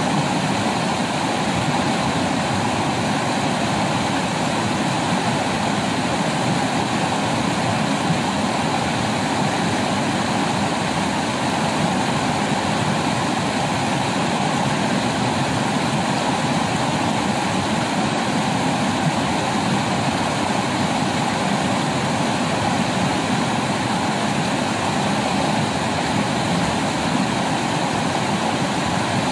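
Rushing water of a rocky stream pouring over small rapids: a steady, unbroken rush.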